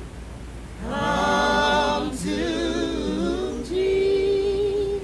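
Unaccompanied gospel singing: voices singing slow phrases with vibrato, starting about a second in, with one long held note near the end.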